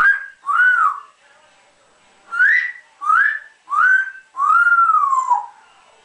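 African grey parrot whistling: two short notes, then three quick rising whistles and a longer note that rises and then falls away.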